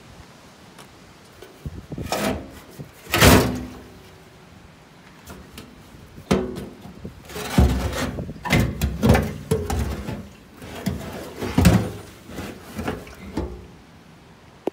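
A series of irregular clunks and scrapes, as of parts being handled and knocked about, the loudest about three seconds in.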